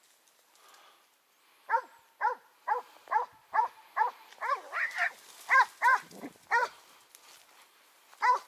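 Hunting dog barking in a rapid run of about ten barks, roughly two a second, then one more bark near the end.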